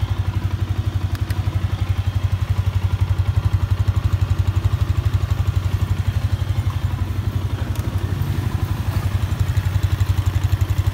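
Yamaha Exciter 150's single-cylinder four-stroke engine idling steadily with a fast, even putter. Little clutch noise is left, in the mechanic's words.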